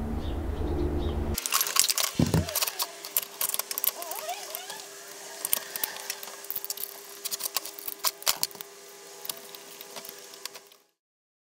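Metal clicks, knocks and light rattles of an alternator stator being seated in its housing on a steel workbench, with a ratchet and hex-bit socket handled and turned on its screws. Before that, a steady low hum cuts off about a second and a half in. The clicking stops abruptly near the end.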